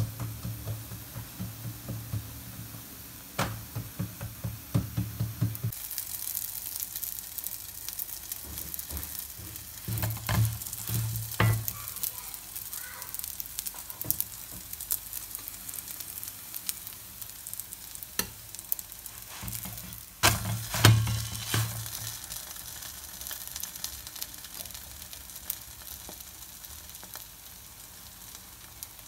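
A vegetable-stuffed msemen flatbread frying on a hot, oiled flat pan, with a steady sizzle and crackle. A few sharp knocks from handling the bread and pan are heard, the loudest about twenty seconds in, with a low hum under the first few seconds.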